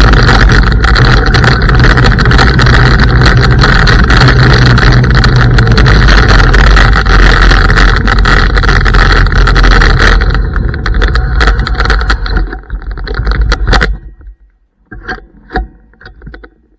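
Riding noise of an electric scooter on a dirt and gravel track, picked up close to the wheel: heavy rumble and wind noise with a steady hum. It fades after about ten seconds, cuts off suddenly near the end, and is followed by a few faint clicks.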